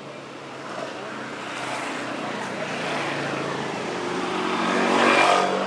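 A motor vehicle passing by, its engine growing steadily louder to a peak near the end and then starting to fade.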